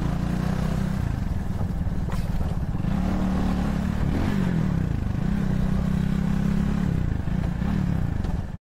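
Vitacci XMT 250's 250cc single-cylinder four-stroke engine running at low road speed, its pitch falling and rising several times as the throttle is eased and opened, with wind rushing past the microphone. The sound cuts off suddenly near the end.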